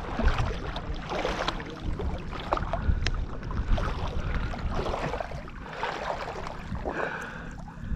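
Water sloshing and splashing irregularly as someone wades through shallow marsh water, with scattered small splashes.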